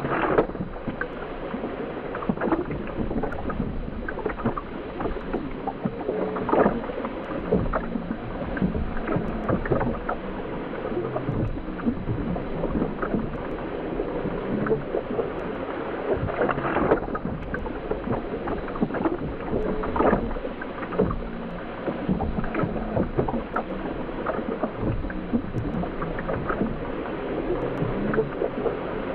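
Underwater ambience: a steady, muffled wash of water noise, dotted throughout with small crackles and bubbly clicks.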